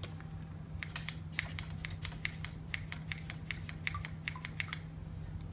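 Nechmad NEC220 vaccinator gun clicking as its trigger is squeezed over and over to prime it with vaccine: a quick run of sharp clicks, several a second, starting about a second in and stopping near the end.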